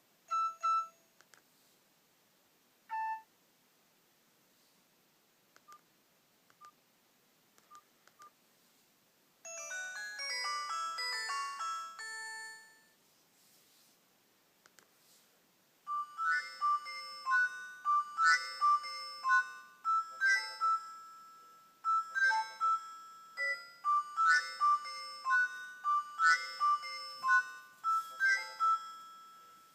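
Nokia 105 (2017) mobile phone ringtones through its small speaker: two short beeps, then a brief tune about ten seconds in that stops after about three seconds. From about sixteen seconds a bright melody of quick high notes plays and repeats.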